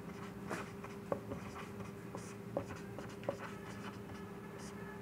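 Quiet marker-pen strokes on a whiteboard as words are written: soft scratchy squeaks with a few sharp ticks, over a faint steady hum.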